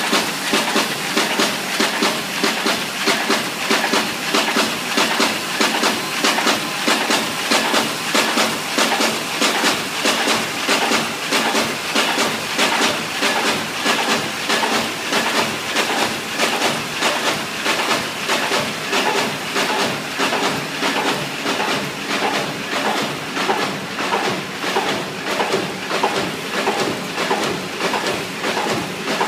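Sheet-creasing machine running inline with a high-pile feeder and a Heidelberg Ti56 buckle folder, as sheets are fed, creased and folded. It gives a fast, even clatter of strokes, several a second, over a steady hiss.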